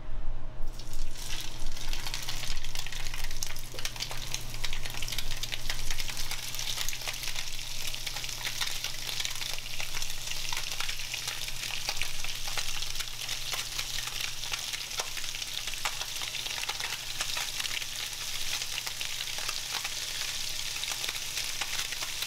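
Mangrove snapper fillets sizzling in hot coconut oil in a frying pan, a steady hiss full of small pops. It starts about a second in as the first fillets go in and is loudest over the next few seconds, with more fillets added as it goes on.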